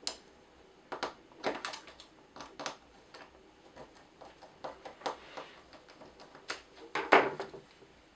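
Scattered clicks and plastic knocks of a UK three-pin mains plug being handled and taken apart, with a louder rattle about seven seconds in.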